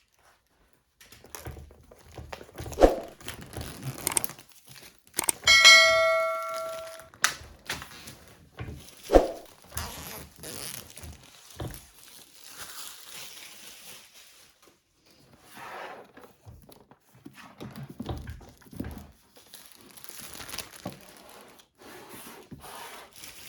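A cardboard product box being cut and torn open by hand, with tearing, crinkling of packaging and thunks of the box knocked on a surface. About five seconds in, a short bright ringing tone sounds for about a second and a half.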